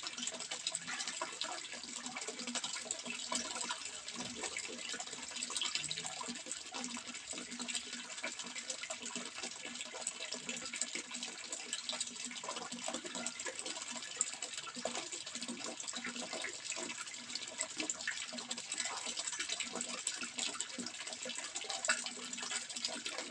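Water running steadily, a continuous splashing and trickling with many small drops and bubbles, unchanging throughout.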